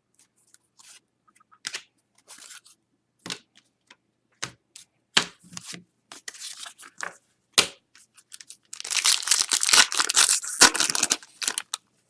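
Trading card pack wrapper being handled and torn open: scattered short rustles and taps, then a louder stretch of tearing and crinkling about two and a half seconds long, starting about nine seconds in.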